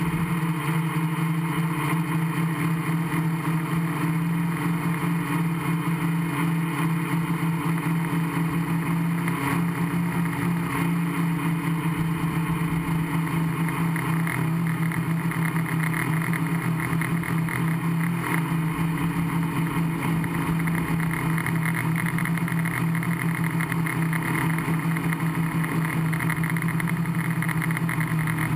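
Gaui 500X quadcopter's electric motors and propellers running in flight, a steady buzzing hum of a few pitches with rushing noise, heard from the camera mounted on the frame.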